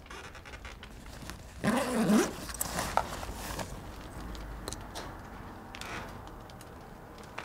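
A short low voice-like groan about two seconds in, then rustling and light clicks as a golf ball is taken out of a fabric golf bag.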